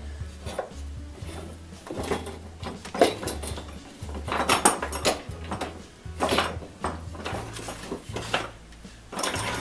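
Wooden frame parts and the steel blade of a buck saw being handled and fitted together on a workbench: a series of separate knocks and clatters of wood on wood, with metallic clinks.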